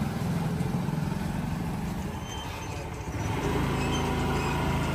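Vehicle engine running with a steady low hum, growing louder and fuller about three seconds in.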